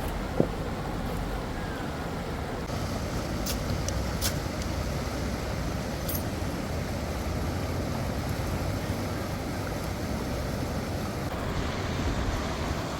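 River water rushing steadily, with a sharp click about half a second in and a few faint ticks around four seconds in.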